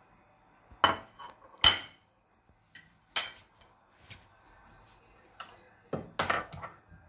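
Wooden chopsticks knocking against a stainless steel mixing bowl and dishes clinking on the counter: a handful of separate clinks and knocks, with a cluster of them near the end.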